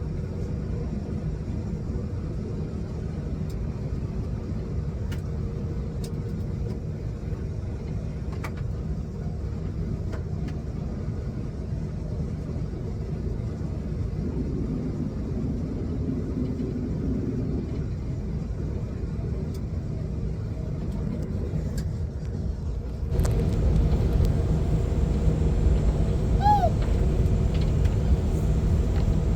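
Steady low rumble of an airliner's cabin in flight, the engine and air noise constant, stepping up louder and fuller about three-quarters of the way through.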